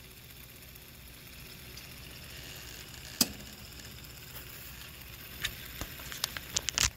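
Steady, faint whir of a 3D-printed pulse motor's magnet rotor spinning between its drive and pickup coils. A sharp click comes about three seconds in, and a run of clicks follows near the end.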